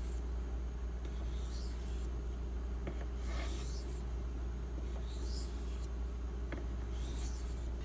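Steel knife edge sliding across a 1000-grit diamond-bonded waterstone in slow, light polishing strokes: four soft hissing scrapes, one about every one and a half to two seconds. A steady low hum runs underneath.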